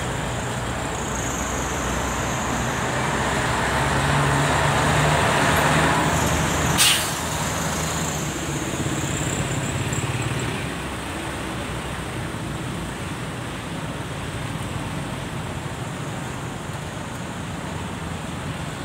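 Road traffic: a vehicle's engine hum grows louder about four to six seconds in, then a short sharp hiss about seven seconds in, the loudest moment; a steady traffic hum continues afterwards, a little quieter.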